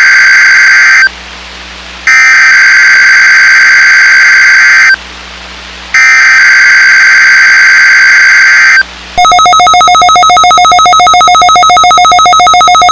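Emergency Alert System SAME digital header: three harsh, screeching data bursts of about three seconds each, a second apart, marking the start of a Required Weekly Test. About nine seconds in, they give way to a loud, rapidly pulsing electronic alert tone.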